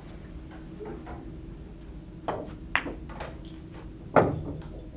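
Sharp clicks of billiard balls on a keglebillard table: a few light clicks about two seconds in, then one louder knock about four seconds in.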